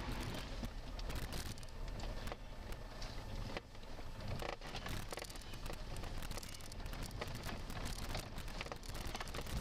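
Cabin noise of an SUV (Mahindra XUV500) driving over a rough, rocky track: a steady low rumble with constant small rattles and knocks. The noise dips briefly about three and a half seconds in.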